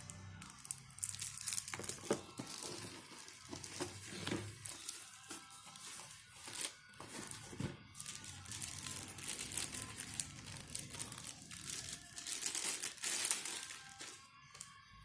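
Packaging being handled during an unboxing: irregular crinkling and rustling in short bursts.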